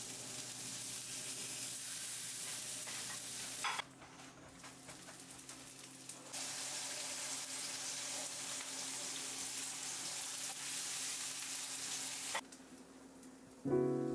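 Food sizzling in a hot frying pan, in two long stretches with a quieter break of a couple of seconds between them, over a steady low hum.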